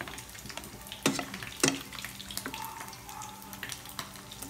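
A ladle scooping boiled squash chunks out of a steel pot of cooking liquid: the liquid sloshing and stirring, with two sharp knocks of the ladle against the pot about a second in and again half a second later, plus a few lighter clicks.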